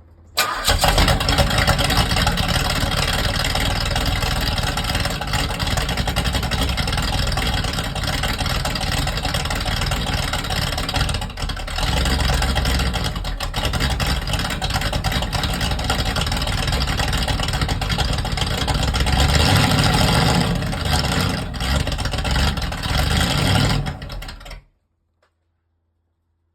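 Small-block Chevy V8 with a Comp Cams Thumpr camshaft and no muffler, running with a rough, lumpy idle. It starts suddenly and cuts off near the end.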